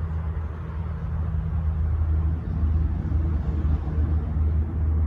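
A steady low rumble that wavers in strength.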